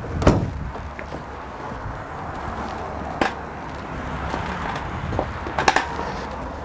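Ford Transit Custom van's rear tailgate latch releasing with a sharp knock as the tailgate is opened, followed by steady outdoor noise and a few lighter clicks and knocks.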